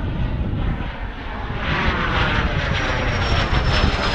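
Airplane passing low overhead: its engine noise swells about a second and a half in, with a high whine falling slowly in pitch as it goes over.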